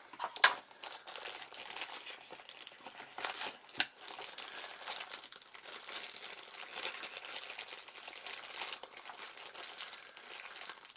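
Plastic packaging crinkling and rustling as a small dashcam is unwrapped from its box, with a few sharp clicks and snaps.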